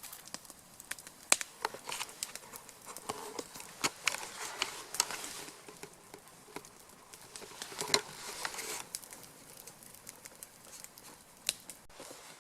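Wood campfire crackling: irregular sharp snaps and pops, with a couple of brief stretches of hiss from the burning wood.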